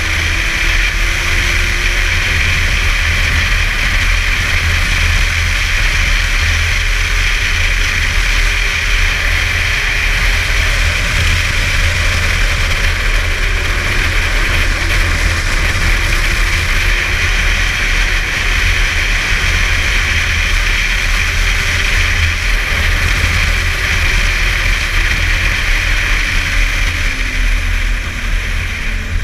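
Snowmobile engine and track running steadily at trail speed, with a heavy low rumble; the engine note wavers slightly and drops near the end as it eases off.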